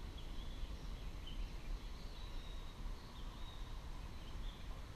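Outdoor ambience: faint short bird chirps scattered over a low steady rumble.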